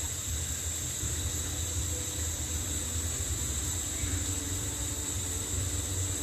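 Gas hob burner running: a steady low roar and hiss from the flame, with a steady high-pitched tone above it.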